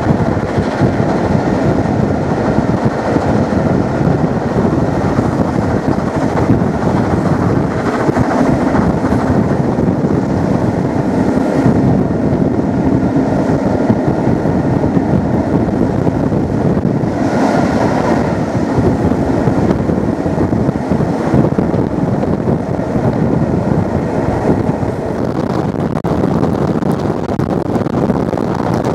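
Steady rumble of a steam-hauled passenger train running along the line, heard from inside a coach with wind rushing at the window. A brief louder rush comes a little past halfway.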